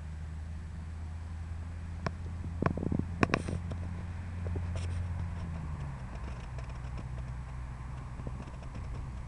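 Child's quad bike engine running steadily at a distance, its low hum shifting pitch about six seconds in as the bike moves off. A few sharp clicks, the loudest sounds, come between about two and three and a half seconds in.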